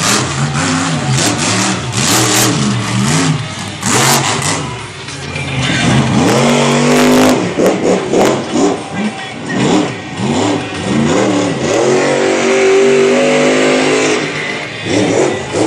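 Race vehicle's engine revving up and down over and over as it runs a dirt track with jumps. It makes quick short rev rises and falls for the first few seconds, then longer climbing revs.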